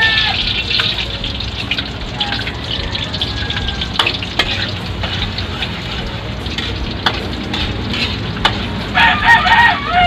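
Garlic sizzling in hot oil in a wok, with a few sharp clicks of the metal spatula against the pan. Near the end a rooster crows loudly.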